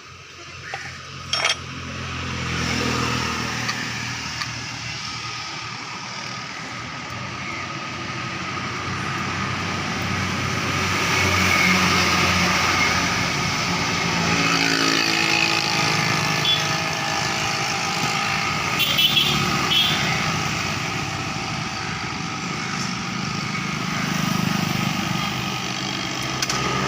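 A motor vehicle engine running steadily. It starts up about two seconds in after a couple of clicks, and grows louder around ten to twelve seconds in.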